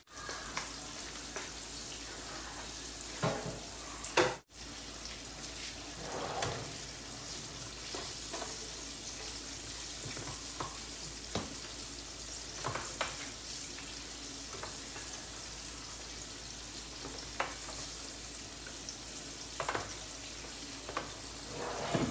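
Floured tilapia fillets sizzling in hot oil in a frying pan, a steady hiss, with scattered short knocks from the pan and utensils. The sound cuts out for a moment after a louder knock about four seconds in.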